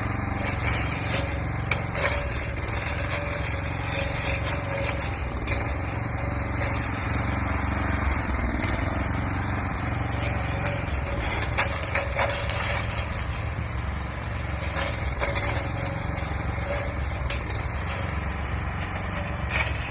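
Lawn mower engine running steadily while its blade cuts into hedge branches, with many irregular crackling snaps and scrapes over the engine.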